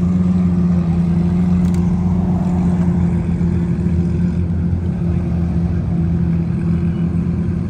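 Cars driving past on the road over a steady low engine drone.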